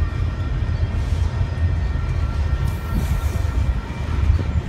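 Double-stack container freight train rolling past on the near track: a steady low rumble of steel wheels on the rails.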